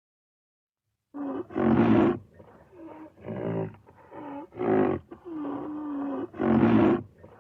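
A wild animal calling: a run of about half a dozen loud, pitched calls over some six seconds, some sliding up or down in pitch, starting about a second in.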